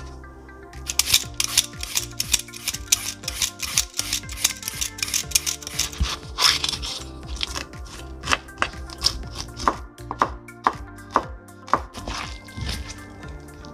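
Kitchen knife striking a wooden cutting board in quick runs of cuts as green chili peppers are sliced thin, over background music.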